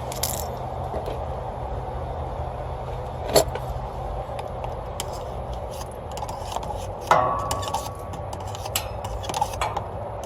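Copper refrigerant tubing being knocked and worked to clear reaming shavings from the cut end: light metallic clicks and scrapes, with a sharp knock about three seconds in and another about seven seconds in that rings briefly. A steady low hum runs underneath.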